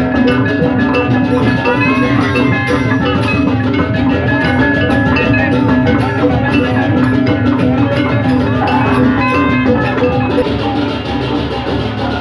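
Balinese gamelan playing at a brisk pace: bronze metallophones and gongs struck in fast interlocking notes, with drums, over a steady ringing hum.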